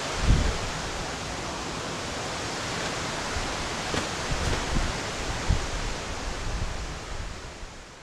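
Steady rushing of the Agur waterfall, with a few low thumps on the microphone, fading out near the end.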